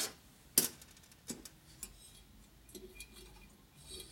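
Metal parts of a valve spring compressor clicking and tapping against a valve spring and retainer on a shovelhead cylinder head while the keepers are being set. One sharp click comes about half a second in, then a couple of lighter clicks and faint scattered ticks.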